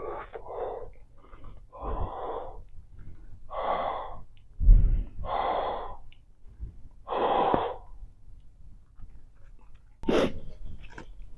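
Close-miked breath through the mouth in a series of long, noisy exhales as bubble gum is blown into a large bubble, with a sharp snap about ten seconds in as the bubble bursts.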